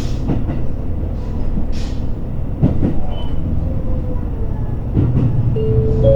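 Interior running sound of a JR Hokkaido H100 diesel-electric railcar: a steady low rumble with knocks as the wheels pass rail joints. Near the end a steady high tone comes in and steps up in pitch.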